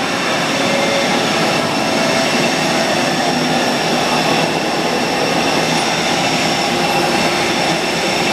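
Daewoo Puma 500 CNC turning center running: a steady mechanical noise with several faint high whining tones.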